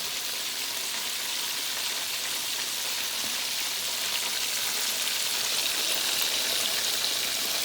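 Chicken pieces frying in hot oil: a steady sizzle with fine crackling, growing a little louder about halfway through.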